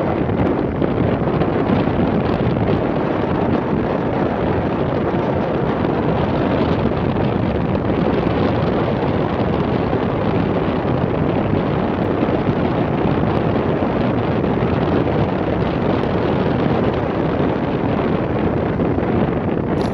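Steady wind rush on the microphone of a moving vehicle, with the vehicle's running noise underneath.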